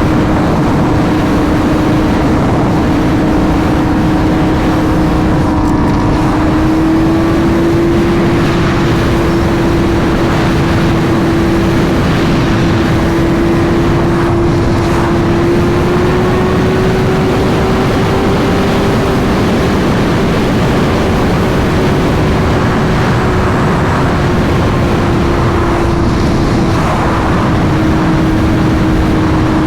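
Sport bike engine holding a steady highway cruise, one even note that climbs a little around the middle and settles back down near the end, under heavy wind and road rush.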